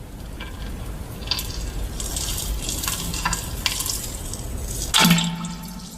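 Pooping and farting sound effect playing: a wet, spattering crackle with scattered pops, then a loud pitched fart about five seconds in, cut off abruptly at the end.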